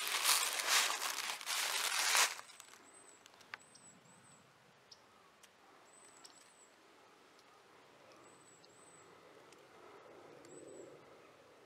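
Footsteps crunching through dry fallen leaves for about the first two seconds, then stopping suddenly. After that, faint, very high, thin chirps from a small bird, mostly in pairs, every second or two.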